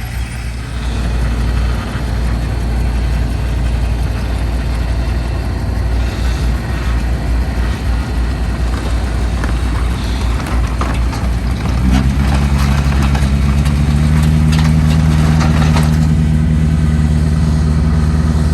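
Vehicle on the road: engine and road noise while driving, with a deeper, steady engine drone coming in louder about twelve seconds in.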